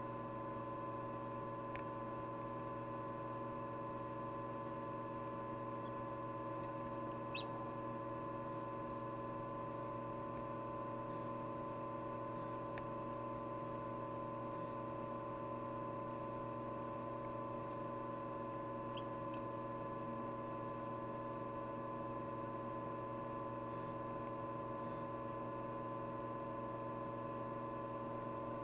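Steady electrical hum of an egg incubator, several tones held level, with a few faint, brief high chirps: the chick peeping inside its pipped egg.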